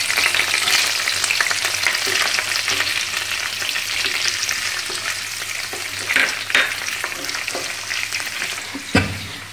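Chopped onion sizzling as it fries in hot ghee in a frying pan, stirred with a wooden spatula that scrapes the pan now and then. The sizzle is strongest as the onion goes in and eases off gradually.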